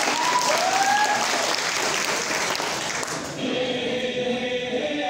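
Audience clapping and cheering, with a few shouts and whoops in the first second or so, over background music; the cheering thins after about three seconds and steady held notes of the music come through.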